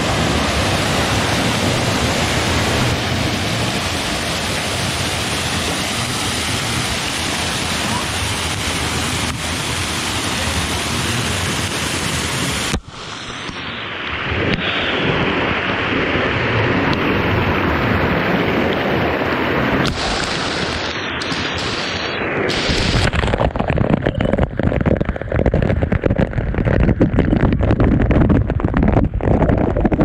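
Waterfall pouring steadily into a rock pool. After a sudden break about 13 seconds in, the falling water sounds close and heavy, and from about 23 seconds it lands right on the microphone in rapid, uneven splashes and thumps.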